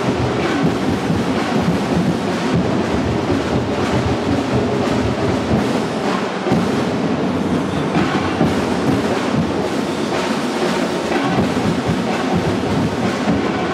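Loud festival dance music driven by drums and percussion, with a dense, steady beat.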